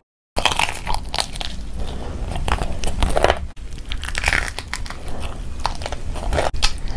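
Close crunching and chewing of crisp food right by the phone's microphone: a dense, irregular run of sharp crunches and crackles.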